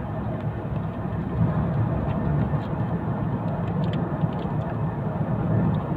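Steady, low road and engine noise of a moving vehicle, heard from inside its cabin.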